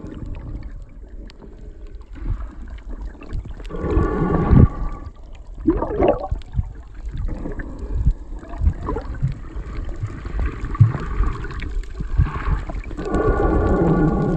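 Muffled underwater sound from a phone held below the surface while swimming: a low rumble of moving water with small knocks, and louder bubbling gurgles at about four seconds and again near the end.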